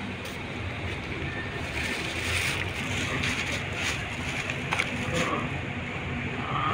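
A kitten chewing on a raw fish, a few short crunches and clicks, over a steady rumble of street noise.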